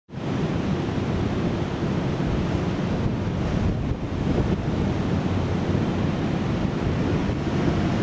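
Wind blowing on the camera's microphone: a steady rushing rumble, heaviest in the low end, that fades in at the very start.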